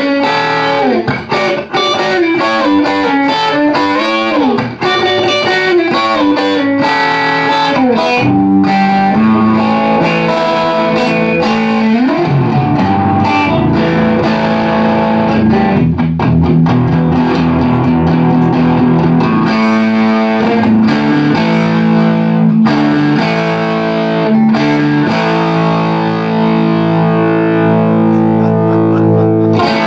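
Telecaster-style electric guitar played through a small tube amp: quick single-note lead lines with string bends for the first several seconds, then held chords and a repeating riff.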